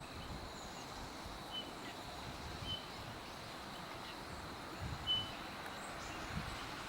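Wild birds giving short, thin high call notes every second or two, the loudest about five seconds in, over a low uneven rumble of wind on the microphone.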